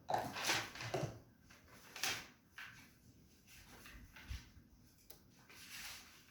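Plastic vacuum cleaner parts being handled and fitted together: a series of irregular clacks, knocks and rustles, heaviest in the first second and again about two seconds in.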